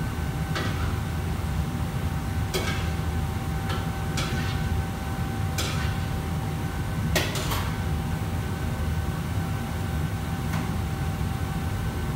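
Steady low rumble of a commercial wok range and its extractor hood, with a faint steady whine. Over it, metal ladles clank against woks about half a dozen times at irregular moments, the loudest a little past the middle.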